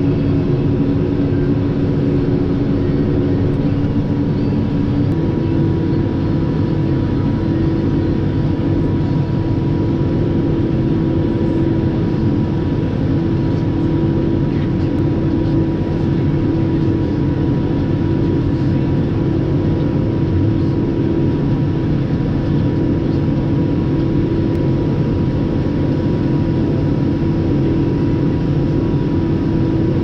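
Steady drone of a tractor engine heard from inside the cab while driving alongside a working combine harvester; the engine note shifts slightly about five seconds in.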